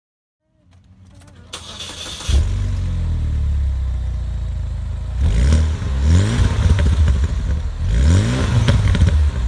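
Chevrolet HHR SS's turbocharged 2.0-litre four-cylinder, breathing through an aftermarket downpipe, cranking and catching about two seconds in. It then idles, with two quick revs about five and eight seconds in.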